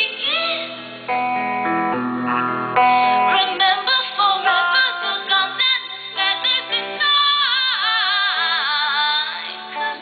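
Live song: a woman singing over guitar accompaniment, holding a long wavering note in the second half.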